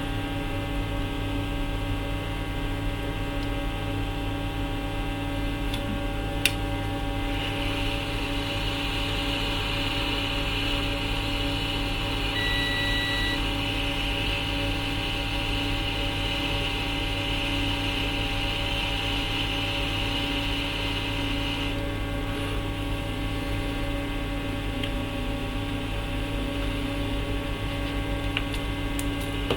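Steady electrical mains hum on a repair bench. A hiss joins it from about a quarter of the way in until about two thirds through, and one short beep sounds partway through the hiss.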